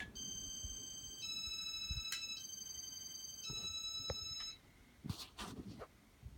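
Electronic tone sequence from the Casablanca Intellitouch fan's control, a short tune of steady beeps that steps through four pitches as the fan takes the two-flick command to reverse. A few sharp clicks follow near the end.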